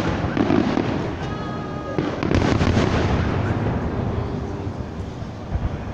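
Fireworks display: aerial shells bursting with sharp bangs about two seconds in and again near the end, over continuous background noise.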